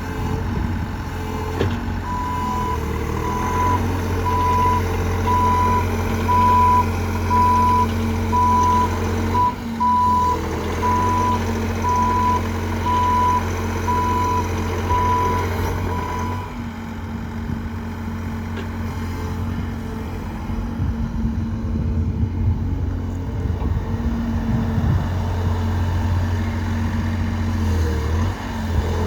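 Bobcat E50 compact excavator's diesel engine running, with its travel alarm beeping about once a second while it moves; the beeping stops after about fourteen seconds and the engine keeps running.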